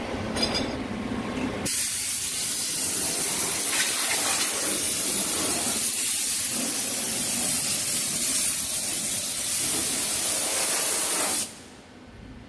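Compressed air hissing steadily from a blow gun, clearing coolant and chips off a freshly machined steel ring on a vertical lathe table. It starts abruptly about two seconds in and cuts off shortly before the end, with a lower machine-shop hum on either side.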